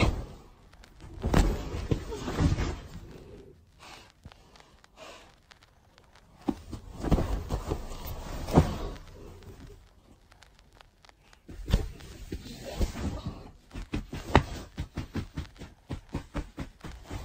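Rustling of bedding and soft thumps as a cat and a hand move about on a bed, in irregular bursts with quiet stretches between, and a quick run of taps in the last few seconds.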